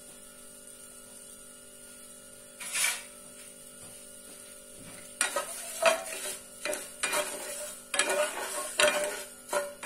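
Silicone spatula stirring sugar and water in a nonstick saucepan, scraping the undissolved sugar across the pan bottom in a run of strokes that starts about halfway through. Before that there is a steady low hum with one short rustle about three seconds in.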